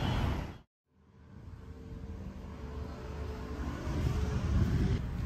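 Street noise cuts off abruptly into a moment of silence, then a low, steady indoor rumble with a faint hum fades in and grows louder.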